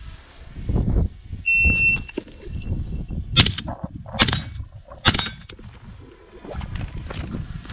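A shot timer's start beep, a single steady high tone, then three sharp rifle shots a little under a second apart.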